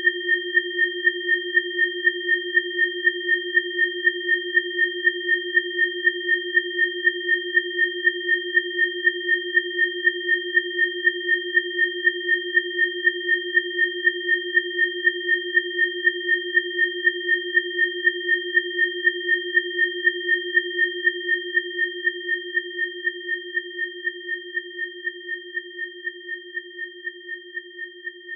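Electronically generated sine tones: a low steady tone together with two higher steady tones, the louder of these pulsing evenly about three times a second. The whole sound fades down over the last several seconds.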